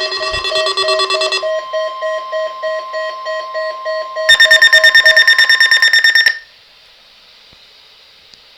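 Several NOAA weather radios sound their alert alarms at once: pulsing beeps of different pitches over the broadcast's steady 1050 Hz warning tone. About four seconds in, a louder rapid beeping joins. About six seconds in, the alarms cut off suddenly, leaving faint hiss.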